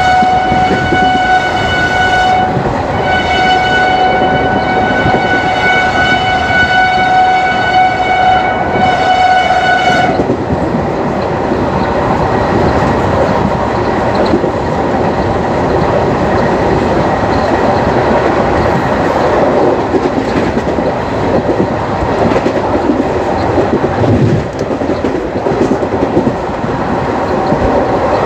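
WAP4 electric locomotive horn sounding a steady single-pitched blast that breaks off briefly about two seconds in, resumes and cuts off about ten seconds in. Under it and after it, the ICF coaches' wheels clatter and rumble on the track at speed.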